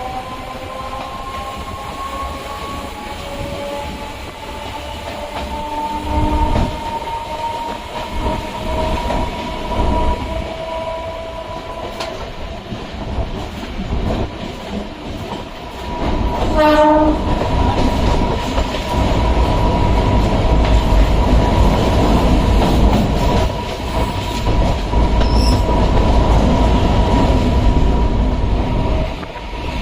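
Chennai suburban electric train running: a whine that rises slowly in pitch as it picks up speed, then holds steady while the wheel-on-rail rumble grows louder. A short horn blast sounds about halfway through.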